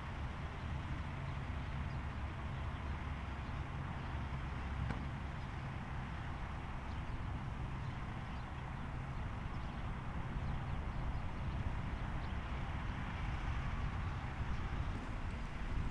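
Steady road traffic noise, a low rumbling hum with a hiss of tyres and no siren tone in it.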